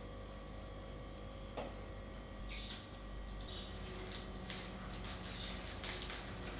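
Faint food-preparation handling sounds: scattered light clicks, taps and rustles of hands picking up vegetables and moving utensils, over a faint steady hum.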